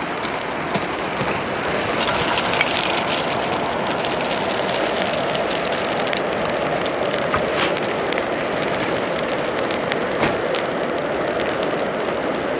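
Electric forge blower running with a steady whir as it forces air up through the fire pot, its level climbing a little in the first couple of seconds and then holding. A few short sharp clinks stand out over it.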